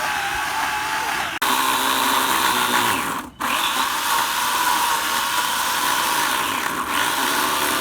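Handheld electric power tool running under load, its motor pitch wavering; it cuts out for an instant about a second and a half in and again briefly about three seconds in, then runs on.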